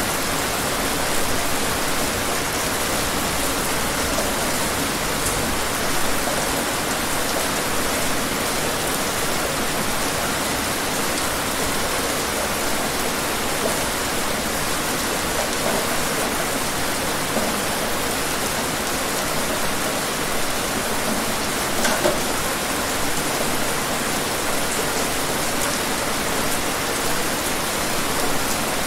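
Steady rain falling: an even hiss with the odd louder drop, such as one about three quarters of the way in.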